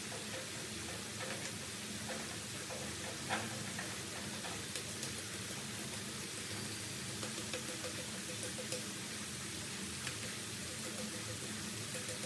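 Potato strips deep-frying in hot oil in a wok: a steady sizzle with scattered small pops and crackles, the sharpest about three seconds in.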